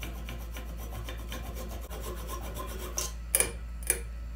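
A saw rasping back and forth through chokecherry wood to cut a turned goblet free of the lathe, with a few louder strokes about three seconds in.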